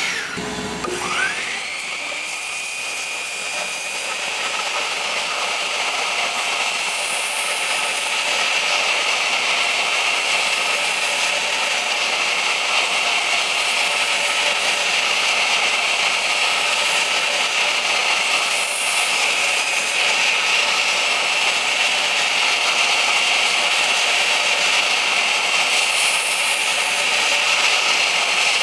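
Power saw cutting door frame stock: the motor winds up to speed about a second in, then runs steadily with a high whine over an even hiss of wood being cut.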